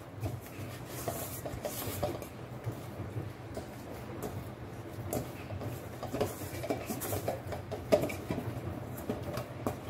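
Hands kneading soft naan dough in a stainless steel bowl: irregular soft knocks and scrapes of dough and fingers against the metal, over a steady low hum.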